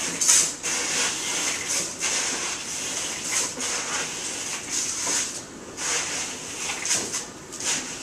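Kitchen handling noise: an irregular run of clatters and hissy, scraping rustles.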